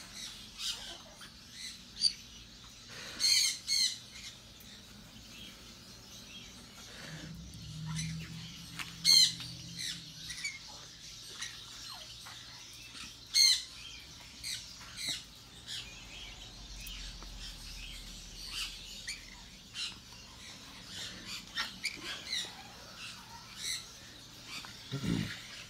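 Baby African grey parrot giving short squawks, a handful spread through with fainter chirps between, while held in a towel after having a swallowed syringe removed from its impacted crop.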